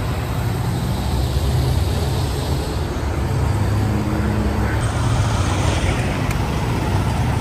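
Diesel truck engines running steadily under a continuous wash of freeway traffic noise.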